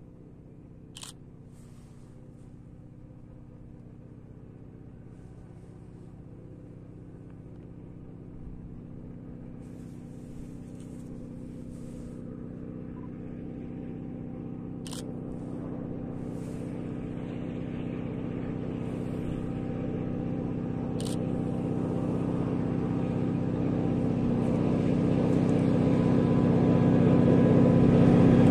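Freight train's diesel locomotive approaching, its engine's steady drone growing gradually louder throughout. A few short sharp clicks stand out: about a second in, about halfway, and again about three quarters of the way through.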